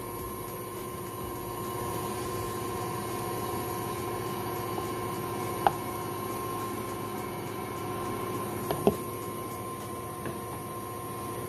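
KitchenAid stand mixer running steadily, its wire whisk beating stiffly whipped egg whites as the yolks are mixed in for a batter. Two brief light knocks, one about halfway through and another a few seconds later.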